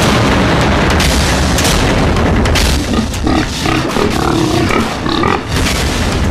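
Loud, dense film soundtrack of booming, drum-like hits, with a pitched cry rising out of it from about three to five seconds in.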